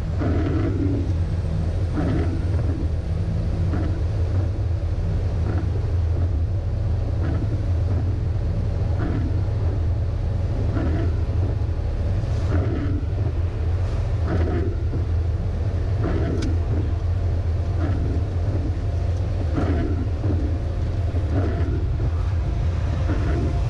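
MAN LE280B 4x4 truck's diesel engine running steadily at highway speed, a deep drone. A soft regular swish repeats about every two seconds.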